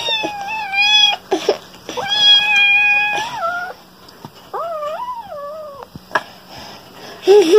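Toddler crying in three long, high wails, the last one quieter and wavering.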